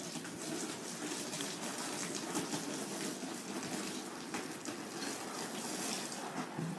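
Water pouring from a plastic watering can over a person's head and splashing down, a steady gushing sound with scattered splashes.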